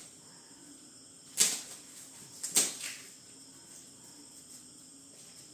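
Plastic packaging wrapped around a new water dispenser being cut and handled: two short, sharp rustling scrapes about a second apart.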